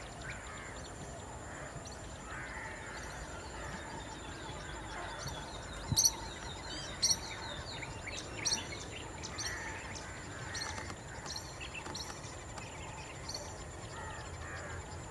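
Wild birds chirping and calling in a continuous chorus, with three loud, sharp chirps close by around the middle, over a thin steady high-pitched tone.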